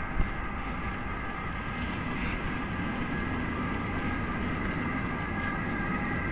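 A rail vehicle running, a steady low rumble with several steady high whining tones over it.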